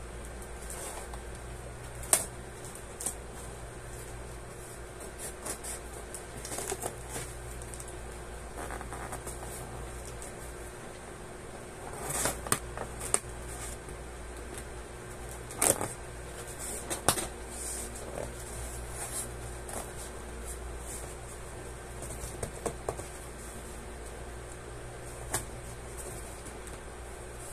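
Cardboard box being opened by hand: scattered sharp clicks, scrapes and rustles of packing tape and cardboard flaps, over the steady hum of an electric fan.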